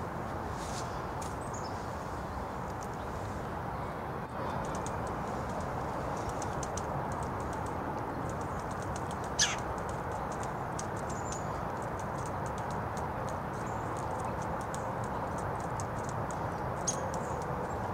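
Outdoor ambience: a steady low rumble with many faint light ticks throughout. A single sharp falling chirp sounds about nine and a half seconds in, and a shorter one comes near the end.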